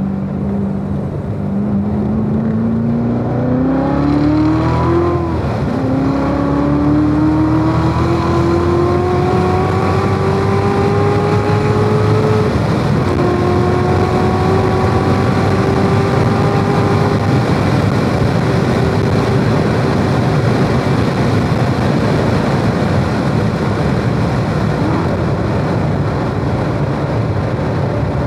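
Corvette Z06's supercharged V8 at full throttle, climbing in pitch through the gears with two upshifts (about five seconds in and about thirteen seconds in). The engine note then drops away as the driver lifts off and brakes, and wind and tyre noise stay loud throughout, heard from inside the car.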